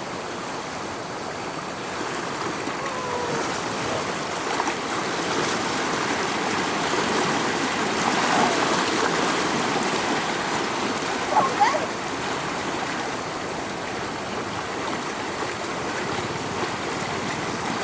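Floodwater rushing and gurgling in a steady stream, with a couple of short high-pitched sounds about eleven seconds in.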